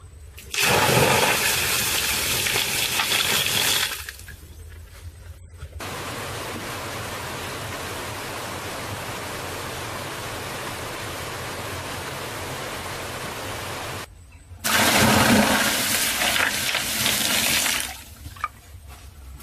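Water gushing and splashing in two loud stretches of about three seconds each, with a steadier, quieter rush of running water between them. The sound starts and stops abruptly.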